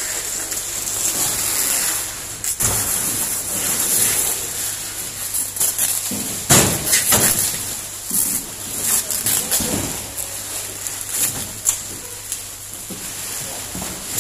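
Processing-plant background noise: a steady machine hum and high hiss, with irregular knocks and rustles that are loudest a little past the middle.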